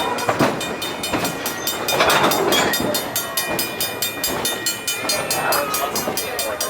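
Narrow-gauge passenger train cars rolling, with a fast, even clicking of the running gear and a thin steady high tone over it.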